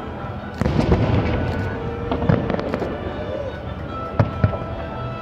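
Aerial fireworks shells bursting in the sky: sharp booms about half a second in, about two seconds in, and two close together near the end, over a steady din of crackling and distant bangs.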